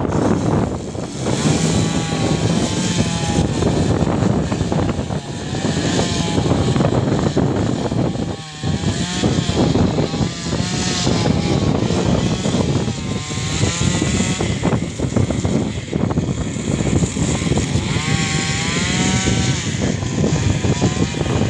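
Strong wind buffeting the microphone and tossing tree branches: a loud, steady, low rushing noise that briefly drops about eight and a half seconds in. Wavering pitched calls rise above it several times.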